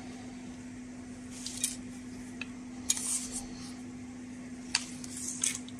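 Small parts of an opened dosimeter being handled by hand, giving a few light clicks, clinks and scrapes over a steady hum.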